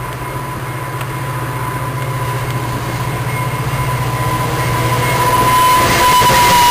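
VIA Rail F40PH-2 diesel locomotive's engine running as the passenger train approaches and passes close by, growing steadily louder. Wheel and rail noise rises near the end as the locomotive goes by.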